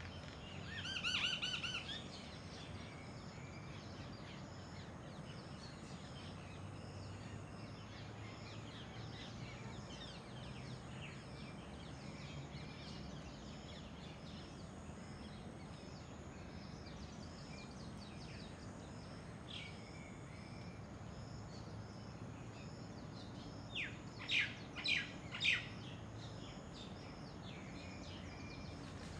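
Outdoor birdsong, with many faint calls from small birds throughout. One louder, clear call comes about a second in, and near the end there are four sharp rising chirps in quick succession.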